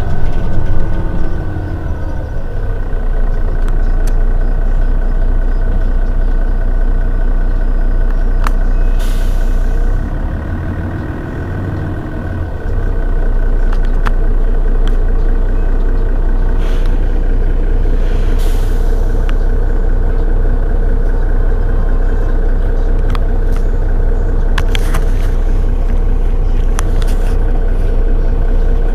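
Mercedes-Benz Citaro city bus standing with its engine idling in a steady low hum that dips for a couple of seconds about ten seconds in. Several short hisses of compressed air come from its air system.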